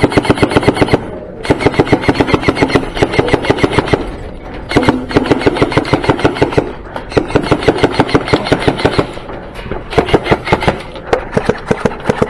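Airsoft electric gun firing full-auto: a series of long rapid bursts, each a fast train of sharp cracks over the whir of the gearbox, with short pauses between bursts.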